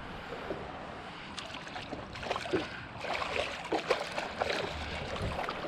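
Water splashing and lapping around a small fishing boat, with a scatter of short splashes and knocks starting about a second in and growing busier toward the end.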